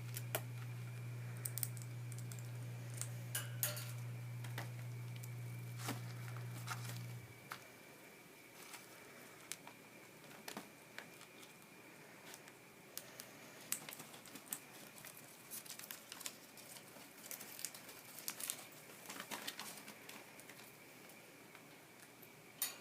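Scattered light clicks, scratches and crinkling from Quaker parrots moving about and picking at things, over a faint steady high whine. A low hum stops about seven seconds in.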